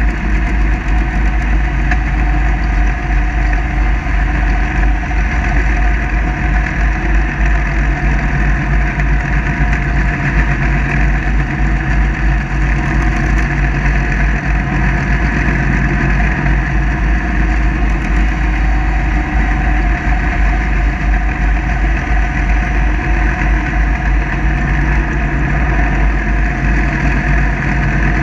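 Kubota 54-inch zero-turn ride-on mower running steadily while mowing a grassy hillside, its engine note holding even with a heavy low rumble underneath.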